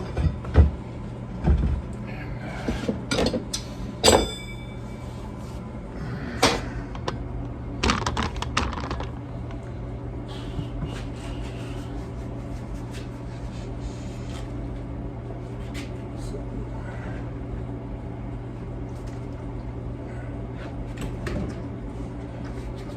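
Metal tools knocking and clanking against a lawn tractor wheel during a tube-tire change, with one ringing metallic clang about four seconds in. After about nine seconds only a steady low hum remains.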